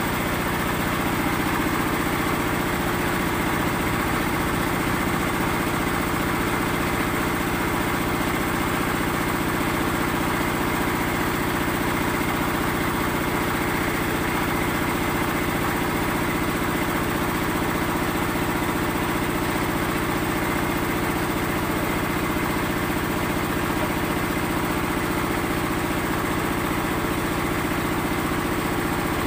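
Small stationary engine running steadily, powering concrete block-making machinery: a drum mixer and a block press. An even, unchanging drone with a fast low pulse underneath.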